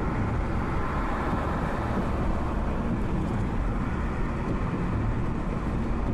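Steady engine and tyre noise heard from inside a car driving along a motorway.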